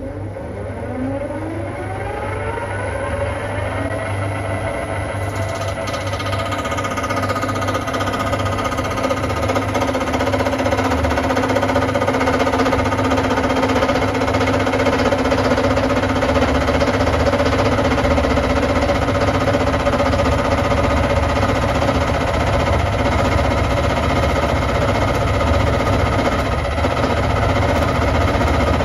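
Centec 2B horizontal milling machine starting up: its gear whine rises in pitch over the first few seconds, then runs steadily as the arbor-mounted disc cutter takes an eighth-of-an-inch-deep cut in aluminium in one pass, growing slightly louder as the cut goes on.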